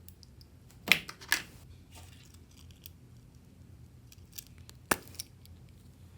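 A few sharp clicks and taps of small hard objects being handled: two close together about a second in, and another near the five-second mark.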